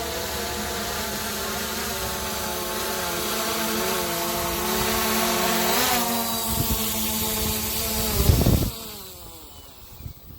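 SG906 Pro 2 quadcopter's motors and propellers whining at several steady, slightly wavering pitches. A loud low thud comes about eight and a half seconds in, after which the whine drops in level and slides lower, as the drone sets down and its motors spin down.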